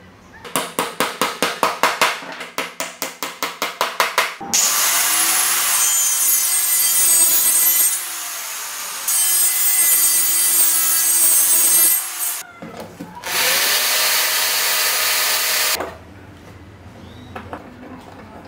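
A run of rapid scraping strokes, about five a second and growing louder. Then a small handheld circular saw runs at high speed with a whine, cutting through a wooden pole. It eases off briefly midway, stops, and makes a second, shorter cut.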